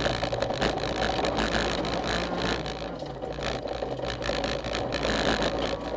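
Honda CRX rally car's engine running hard under load, heard from inside the stripped cabin, with a constant crackle of gravel and stones hitting the underside.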